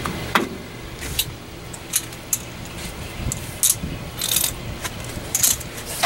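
Metal clinks and rattles from a 1974 Ford F100's rear drum-brake parts being handled and worked loose: about half a dozen sharp clicks scattered over a few seconds, with one brief jangling clatter a little past four seconds, over a low steady hum.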